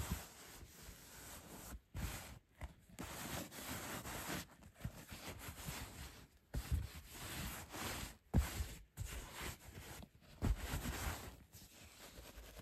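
Intermittent rustling and scraping broken by short pauses, with a few soft thumps: things being handled, with no vacuum motor running.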